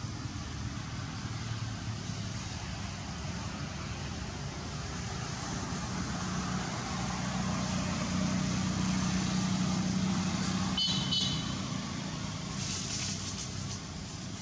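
Low engine hum of a motor vehicle that grows louder toward the middle and then fades, as if passing by. A brief high chirp about two-thirds of the way through, then a short rustle near the end.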